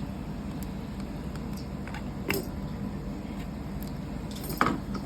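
Two sharp plastic clicks, about two seconds apart, from a lint remover being taken apart by hand, over a steady low hum.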